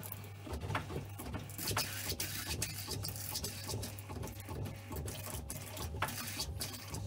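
Dishwasher's water-inlet solenoid valve working as the machine fills: a steady low hum with rapid, irregular rattling clicks that start about half a second in. A water-hammer arrestor has just been fitted on the supply, and the plumbing is relieved a little, in the owner's view.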